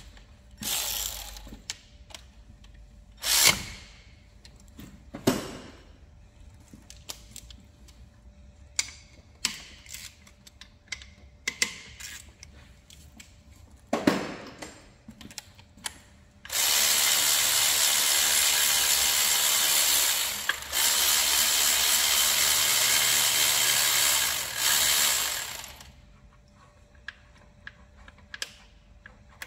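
Handheld power tool, drill or driver type, running in two long bursts of about four and five seconds, about halfway through. Before that come scattered clicks, clinks and a few sharper knocks of hand tools and metal parts.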